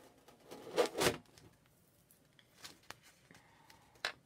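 Adhesive silkscreen transfer being peeled off an enamel sign: a short sticky ripping about a second in, then a few faint rustles of the plastic mesh and a sharp tick near the end.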